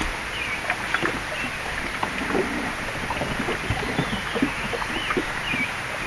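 Small waves lapping and slapping irregularly against the hull of a small fishing boat, over a steady rush of moving air and water, with a few short bird chirps now and then.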